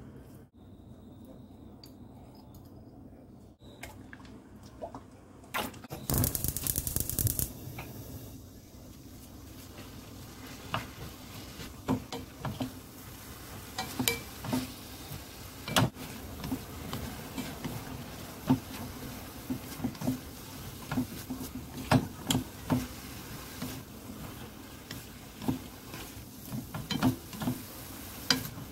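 Sweet potato stems stir-fried in a stainless steel wok: a low sizzle under frequent clacks and scrapes of a wooden spatula and chopsticks against the pan. The first few seconds are quieter, and a brief loud rattle comes about six seconds in, after which the sizzle and stirring carry on.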